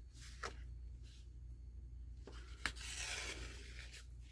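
String being pulled up through a punched hole in a paper journal cover: soft rubbing and paper rustle with a small click about half a second in and a sharper click near the three-second mark, followed by a brief rustle.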